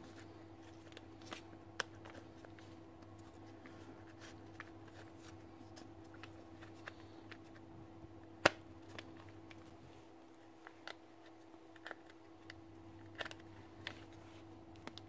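Faint clicks and light knocks of small plastic and metal parts being handled and pressed together as the motor, brush holder and wire connectors are fitted back into a Makita BHP451 cordless drill's housing. One sharp click comes about halfway through, over a steady faint hum.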